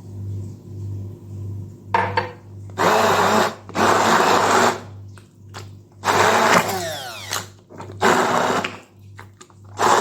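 Electric blender run in short bursts of about a second, six times, puréeing garlic, figs and olive oil into a thick paste. The motor's pitch slides during the longest burst as it works through the mixture.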